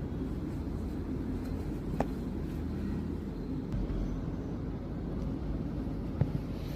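Steady low background rumble, with a few sharp clicks of a wallet's gift box and packaging being handled during unboxing: one about two seconds in and two near the end.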